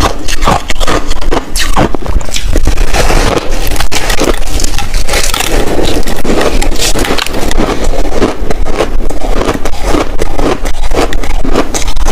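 Close-up crunching of compressed shaved ice being bitten and chewed, a dense run of crackling crunches with no pauses.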